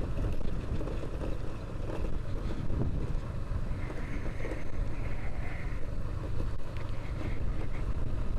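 Dafra Kansas 150 motorcycle's 150 cc single-cylinder engine running steadily while riding, with wind buffeting the microphone.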